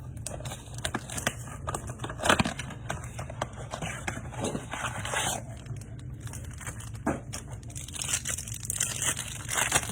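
Trading card packaging being opened by hand: wrappers tearing and crinkling, with scattered rustles and clicks.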